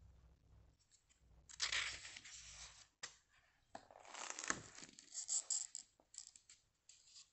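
Pages of a spiral-bound sketchbook being turned by hand: paper rustling in two bursts, the first about a second and a half in and a longer one with sharp crackles from about four seconds in.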